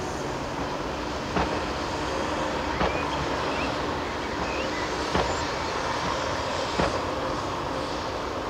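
Caterpillar 330F excavator's diesel engine running steadily under hydraulic load as it digs and swings a bucket of soil, with four sharp knocks from the bucket and linkage spaced a second or two apart.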